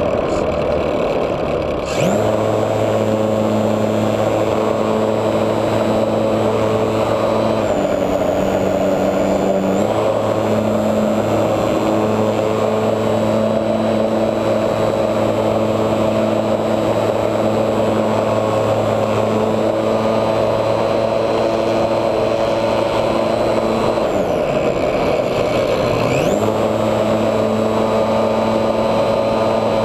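HobbyZone Super Cub RC plane's electric motor and propeller heard from an onboard camera, whining steadily. It is throttled up sharply about two seconds in as the plane goes from the grass into the air. The pitch dips briefly a few seconds later, then falls and rises again near the end as the throttle is eased off and opened back up.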